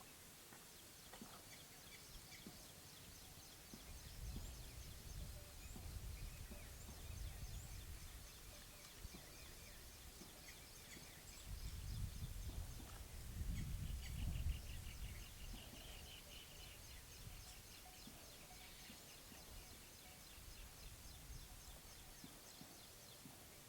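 Faint outdoor ambience of birds chirping and calling, with a quick trill of bird notes about fifteen seconds in. Two spells of low wind rumble come and go, the stronger one about twelve to fifteen seconds in.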